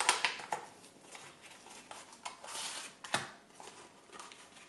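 Small cardboard box being handled and opened, and its plastic-packed contents slid out onto a silicone mat: faint rustling and scraping with light clicks, one sharper click about three seconds in.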